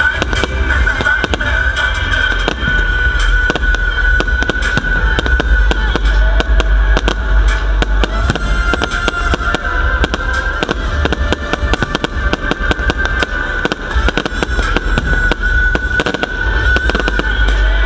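Aerial fireworks bursting in quick succession, with many sharp bangs and crackles, over music and a deep rumble underneath.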